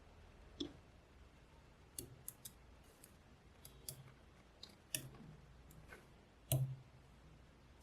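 Small magnetic balls clicking and snapping together as they are placed and pulled apart: a dozen or so sharp, irregular clicks, the loudest a fuller snap about six and a half seconds in.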